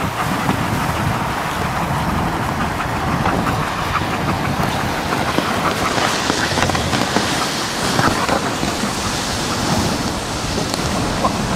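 Wooden dog sled running over snow behind a dog team: a steady scraping hiss of the runners with a low rumble and scattered small knocks and creaks.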